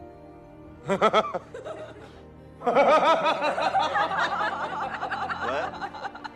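People laughing over background music: a short burst of laughter about a second in, then a longer, louder stretch of laughter from about two and a half seconds in.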